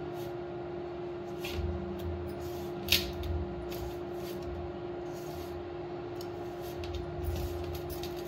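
Hands rubbing oil into dry flour in a metal bowl, mixing bhatura dough before any water goes in: soft repeated scuffs and rustles, with one sharper click about three seconds in. A steady low hum runs underneath.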